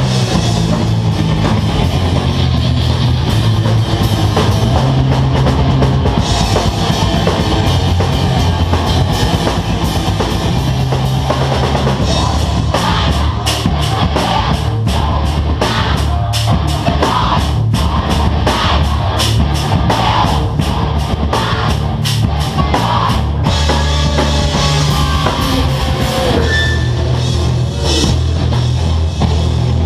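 Live heavy rock band playing loud: electric guitars, bass and a drum kit. In the middle stretch the music is cut up by a rapid run of evenly spaced hard hits.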